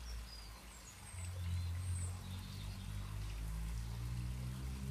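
A low steady droning hum, growing louder about a second in, with a few faint high bird chirps above it.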